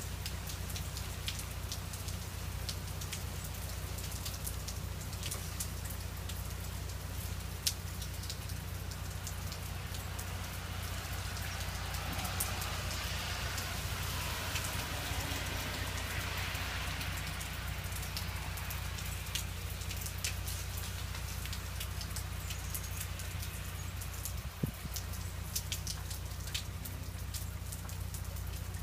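Freezing rain and drips from ice-coated trees pattering steadily, with many sharp ticks of ice and water hitting surfaces. A soft rushing swell rises and fades about halfway through.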